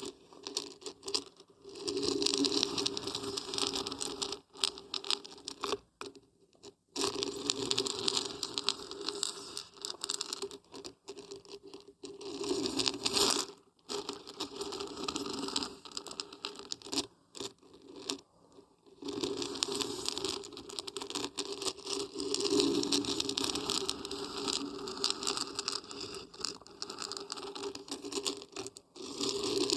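Dried beans and barberries shaken together, a dense rattling patter of many small hard pieces, in long stretches with a few brief pauses.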